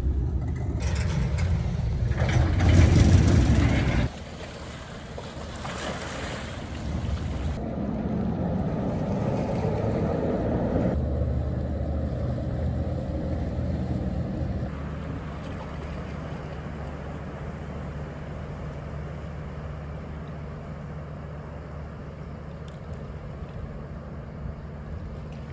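Ferry under way: a steady engine rumble with water rushing past the hull and wind on the microphone. It is loudest in the first few seconds, drops suddenly about four seconds in, then slowly fades.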